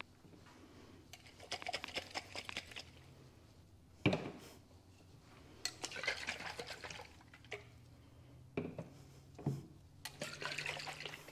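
Glass jars of water mixed with absorbent material being shaken by hand, the liquid sloshing and rattling in three bursts of a second or two each. Between the bursts come sharp knocks as the jars are set down on the tabletop.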